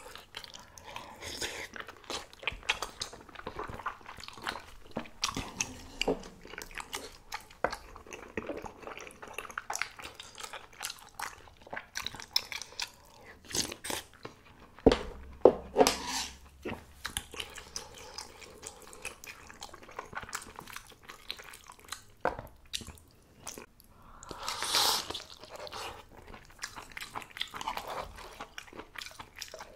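A person eating spicy mala tang soup with noodles: wet chewing and crunching with many scattered sharp clicks, louder clicks about halfway through, and one longer, louder hissing sound near the end.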